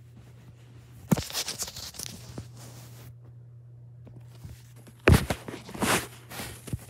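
Rustling of bedding and knocks against the phone close to the microphone as a child moves about on a bed: a sharp thump about a second in followed by a couple of seconds of rustling, then another thump and rustling about five seconds in, over a steady low hum.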